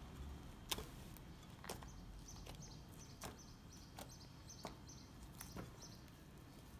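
Homemade fluffy slime, made with glue and shaving foam, being kneaded and pulled by hand, giving faint sticky clicking pops about once a second.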